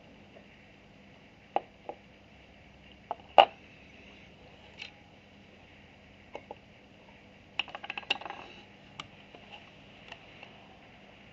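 Scattered small clicks and taps from handling a plastic digital pocket scale with its tweezers and small metal calibration weight, including button presses. A sharp knock comes about three and a half seconds in, and a rattling run of clicks comes about eight seconds in as the scale is picked up.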